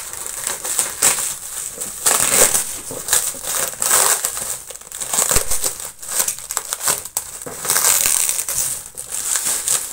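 Clear plastic stretch wrap around a cardboard box being cut with a utility knife and pulled off by hand, crinkling and crackling with many irregular sharp snaps.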